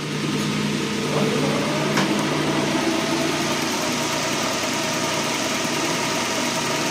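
Hendey metal lathe running under power, a steady mechanical hum of motor and drive with its spindle turning freely through the newly repaired clutch. A faint click about two seconds in.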